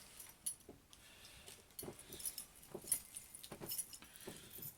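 Handling noise from an airsoft submachine gun and its sling strap: scattered small clicks and light metallic jingling of the strap hardware, at irregular moments, the loudest about three seconds in.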